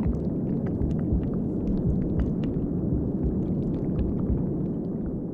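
Low, steady rumbling ambient sound design for a molecular animation, sprinkled with faint scattered clicks.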